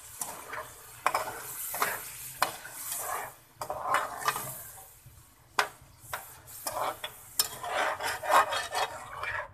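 Metal spatula stirring and scraping chicken and yogurt through the masala in an aluminium pot, with the masala sizzling underneath. It comes as a series of uneven scrapes with a few sharp knocks of metal on the pot.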